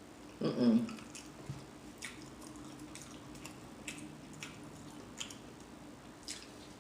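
A short, low burp about half a second in, followed by scattered faint wet mouth clicks and smacks.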